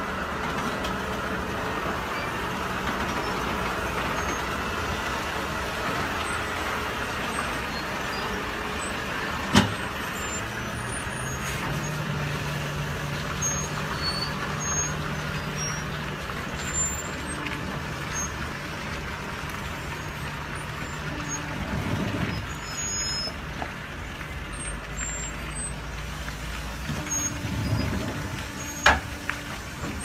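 Diesel engine of a Volvo FH logging truck running at low speed as it creeps through a tight turn with a long log trailer. Two sharp knocks cut through, one about a third of the way in and one near the end.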